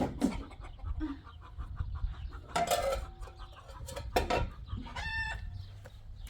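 Chickens clucking, with a short call about five seconds in, over a low rumble and a couple of sharp knocks.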